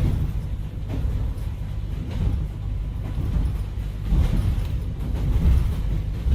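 A low, steady rumble from an added sound-effect track, with a few soft thuds scattered through it.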